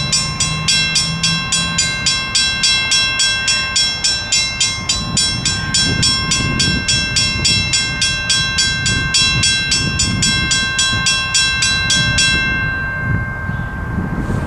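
Western Cullen Hayes mechanical crossing bell ringing at about four strokes a second, then stopping about twelve seconds in as the crossing signal shuts off. Under it runs the low rumble of the freight train.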